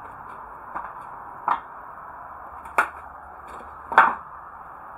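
Four sharp knocks at uneven intervals, the last the loudest, over a steady hiss.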